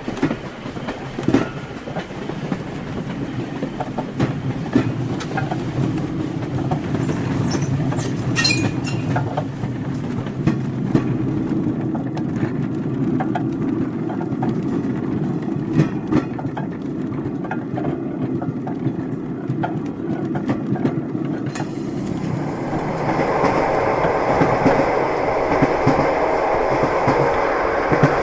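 Moving train: the wheels click and knock over the rails above a steady rolling rumble, growing louder and brighter near the end.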